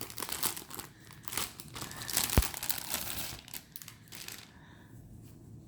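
Packaging on a new tarot deck crinkling and tearing as it is unwrapped, with one sharp snap a little past halfway, dying away near the end.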